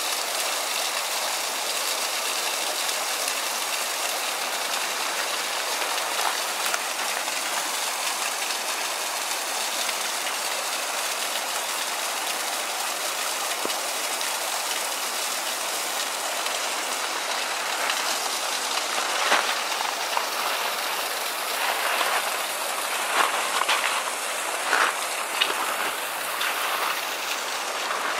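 Steady rush of flowing water from a creek and waterfall, with a few brief louder noises in the last third.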